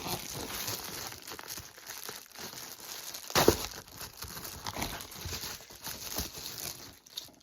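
Packaging crinkling and tearing as a parcel is opened by hand, with one louder rip about three and a half seconds in.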